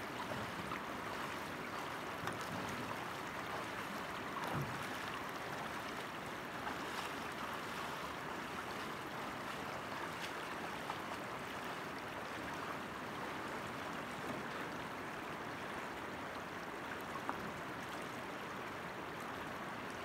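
Steady rush of a shallow river running over stones and gravel.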